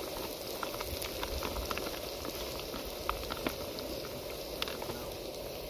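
Diced onions frying in hot oil and butter in a pan: a steady sizzle with scattered small pops and crackles.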